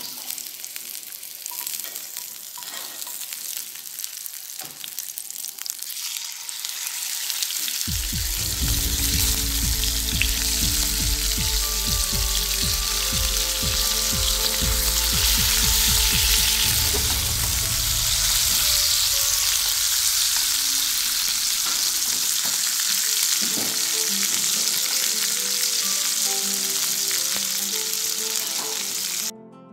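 Beef steaks and garlic cloves frying in hot oil in a nonstick pan: a steady sizzle that grows louder about seven seconds in, once the steaks are in the pan.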